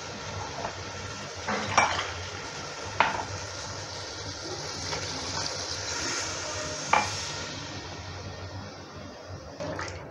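Water poured from a mug into a hot metal pot of browned beef masala, sizzling steadily as a spatula stirs it, with a few sharp knocks of the spatula and mug against the pot. This is the water going in so the meat can simmer until tender.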